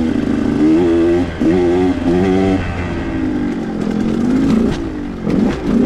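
2021 KTM 125 XC's two-stroke single-cylinder engine under way, revving in short pulls that rise in pitch with brief let-offs between them, then easing into a slower, falling run.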